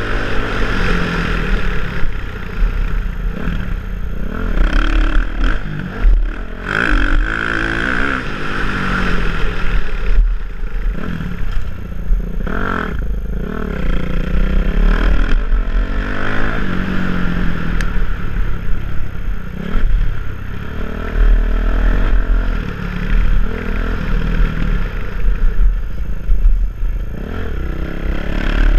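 Motocross dirt bike engine revving hard, its pitch rising and falling every few seconds as the rider works the throttle and gears around the track. The bike rattles and clatters over the dirt, and a strong low rumble of wind runs through the helmet-camera microphone.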